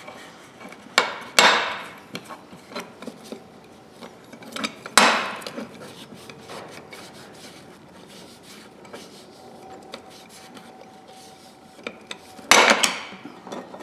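Parts of a pair of locking pliers being handled: three or four sharp knocks, with light rubbing and small ticks in between.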